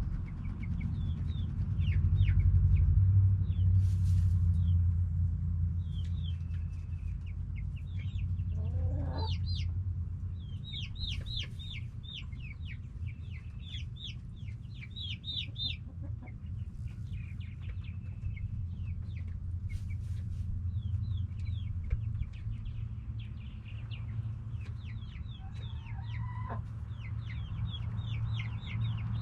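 Backyard hens clucking and calling, with many short high chirps and a couple of longer drawn-out calls, over a steady low rumble that is loudest a few seconds in.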